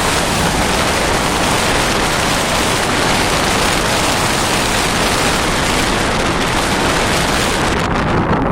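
Strong wind blowing in a steady, loud rush, buffeting the microphone. The hiss eases a little near the end.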